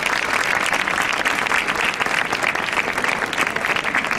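Audience applauding: a dense, steady patter of many hands clapping.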